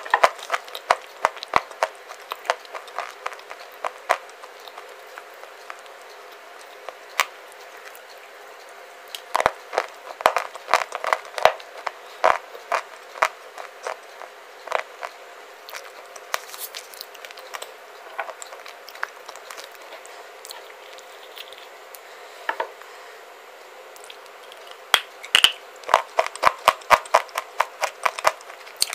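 Close-miked chewing of a baked clay bar: clusters of sharp crunches and crackles, with quieter spells of fewer crunches between bouts.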